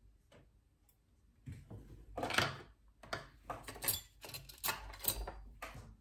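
Tweezers and small metal hand tools clicking and scraping on a workbench. A quick, irregular run of light clicks starts about a second and a half in.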